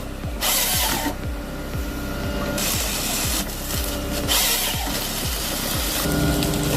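Background music with a steady kick-drum beat. Over it, a Nisula 555C harvester head grips and feeds trunks through its delimbing knives, giving repeated bursts of rasping, cracking wood.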